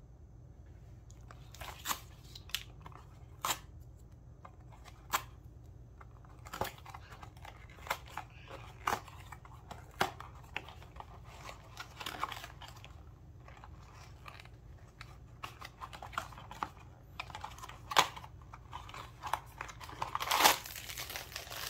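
Cardboard blind-box packaging being handled and torn open by hand: scattered sharp clicks and brief rustles of paper and cardboard, with a louder burst of tearing and crinkling near the end.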